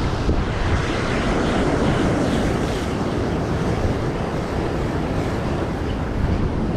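Rough sea surf breaking and churning against rocks, steady throughout, with strong wind buffeting the microphone.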